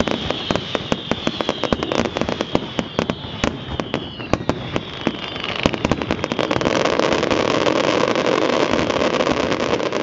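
Professional fireworks display: a rapid barrage of shell bursts and bangs, with high whistles falling in pitch through the first half. About six seconds in the barrage grows louder and denser.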